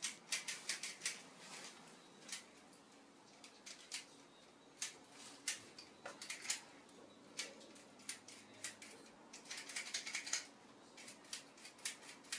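European goldfinch hen calling: fast runs of short, high, clicky twittering notes, bunched at the start and again around ten seconds in, with scattered single notes between.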